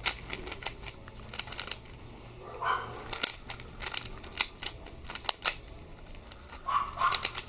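3x3 Rubik's Cube being turned by hand: quick flurries of plastic clicks and clacks as the layers snap round, in irregular bursts with short pauses between.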